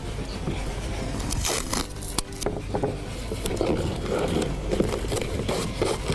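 Masking tape being handled and pressed onto a plastic milk bottle: scraping and crinkling, with a few sharp ticks about two seconds in.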